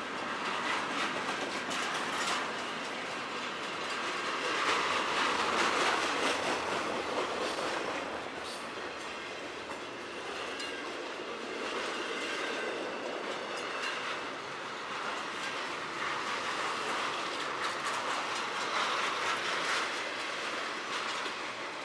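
Intermodal freight train cars rolling steadily past close by, their wheels clicking over the rail joints amid continuous rattling and rolling noise.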